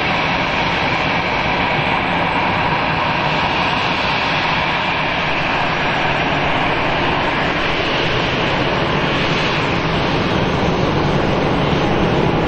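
Jet engines of a taxiing Lufthansa Airbus A320 at taxi power: a steady rushing noise with a faint whine, growing a little louder near the end as the airliner rolls past.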